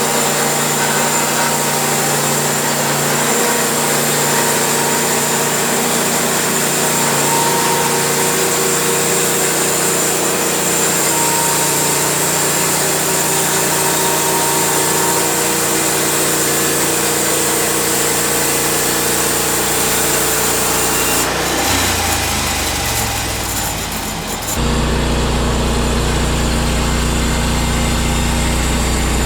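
Sawmill engine running steadily while the saw cuts through a cedar log. About 22 s in the sound dips and changes, then settles into a steady, lower engine note.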